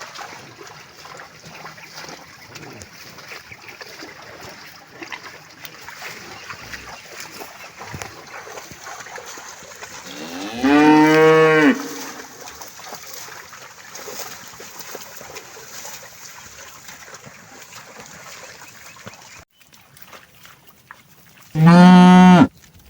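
Cattle mooing: two long, loud moos about eleven seconds apart, the second near the end the louder, with a low steady background hiss between them.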